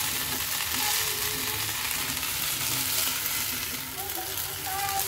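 Poha uttapam frying on a hot tawa griddle: a steady sizzling hiss.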